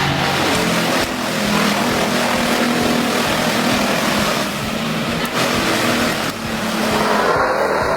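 A large machine's engine running steadily under load, its pitch shifting slightly a few times.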